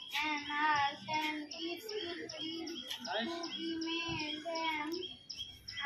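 A boy reciting aloud into a microphone in a sing-song, chant-like voice, some syllables held steady, with birds chirping in the background.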